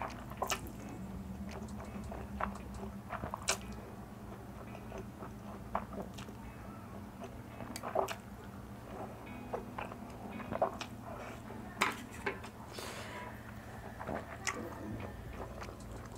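Close-up eating sounds of Samyang 2x spicy fire noodles being slurped and chewed: wet mouth smacks and short clicks come at irregular intervals throughout.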